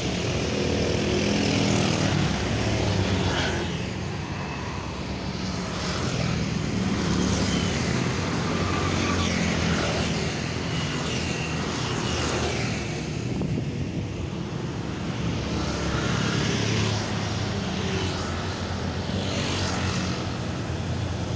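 Road traffic: a large vehicle's engine running with a steady low drone, while other vehicles pass and the noise swells and fades several times.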